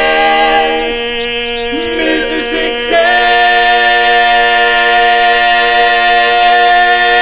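Barbershop quartet singing the closing tag of a song a cappella. One voice holds a steady note while the others move for a couple of seconds, then all four lock into a loud, sustained final chord.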